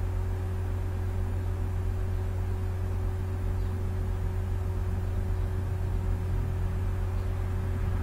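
Steady low electrical hum with a faint steady tone above it and a background hiss, unchanging throughout, with no clicks.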